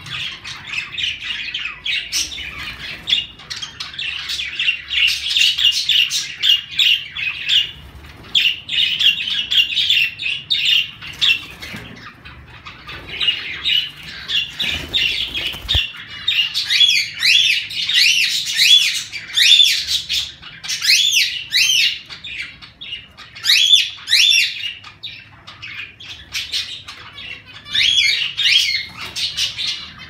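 Mixed aviary birds (budgerigars, cockatiels and zebra finches) chirping and chattering without a break, with rapid up-and-down call sweeps in the second half. A short thump about halfway through as a cockatiel lands on the perch close by.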